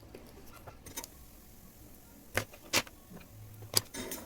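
A few sharp clicks and taps of hand tools on an electronics workbench while a resistor is being taken off the power-supply circuit board. There is a single click about a second in, two louder ones close together past the middle, and another near the end.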